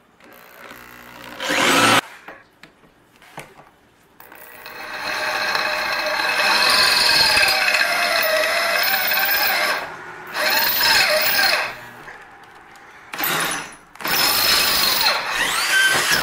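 Electric drill with a twist bit boring holes through a steel motor-mount plate, run in several stretches, the longest about six seconds, with a squeal that wavers in pitch as the bit cuts.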